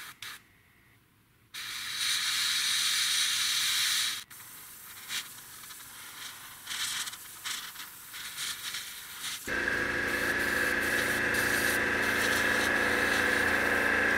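Airbrush spraying paint, a long hiss of about two seconds followed by a string of short on-off bursts. About two-thirds of the way in, a steadier, louder machine sound with a low hum starts and keeps running: the air compressor's motor.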